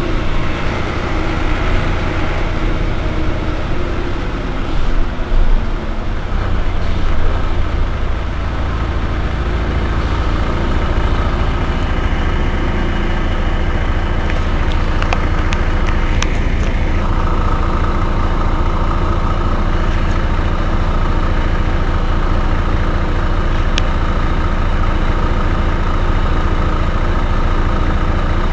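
Mercedes-Benz O405 N city bus's rear-mounted six-cylinder diesel idling steadily while standing. A higher steady whine joins a little past halfway.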